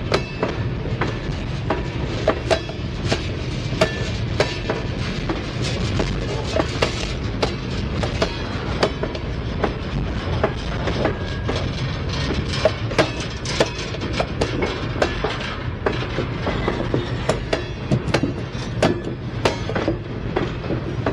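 Freight train of covered hopper cars rolling past close by: a steady rumble with frequent sharp clicks of the wheels passing over rail joints.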